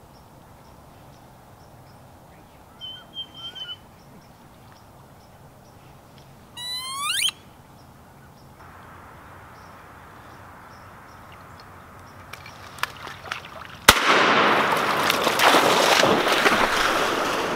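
Wood duck call blown by a hunter: a short wavering whistle, then a rising squeal that climbs fast. A few light clicks follow, then a single 12-gauge-type shotgun shot near the end, with loud rushing noise after it.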